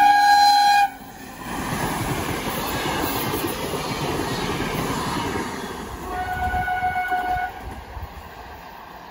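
RA2 diesel railbus sounding its horn in a chord that cuts off about a second in, then rumbling past with its wheels running over the rails. A second, shorter horn blast sounds about six seconds in as the noise of the passing train dies away.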